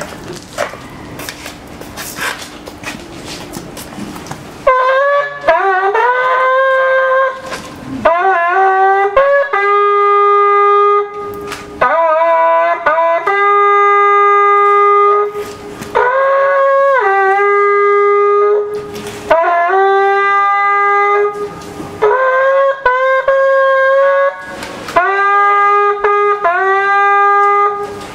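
A long curved shepherd's horn (Polish róg pasterski) plays a series of held calls from about five seconds in. The notes move between two pitches a little apart, sliding from one to the other, with short breaks for breath.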